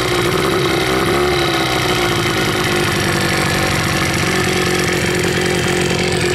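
1986 Evinrude 15 hp two-cylinder two-stroke outboard running steadily on flushing earmuffs after its first start of the season, its pitch wavering briefly about a second in.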